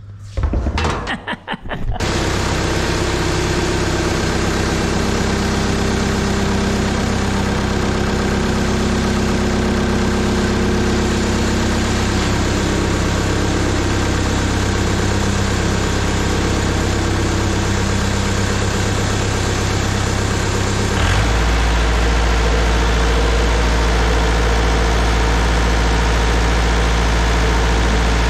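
Rayco RG50 stump grinder's engine cranked by the starter, catching about two seconds in and then running steadily. About twenty seconds in the engine note turns deeper and a little louder.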